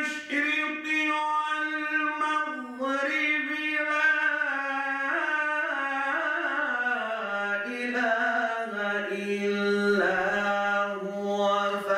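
Unaccompanied male voice reciting Quran verses in the melodic tajwid style, hand cupped to the ear. It is one long ornamented phrase that winds down in pitch through the middle and settles on a long low held note.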